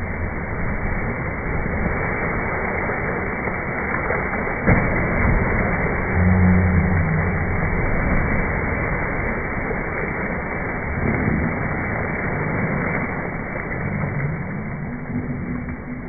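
Pool water splashing and churning as people jump in and swim, with one sharp knock about five seconds in.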